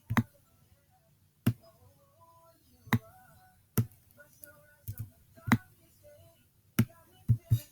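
Computer mouse clicking, about nine sharp clicks at irregular intervals, with faint humming between them.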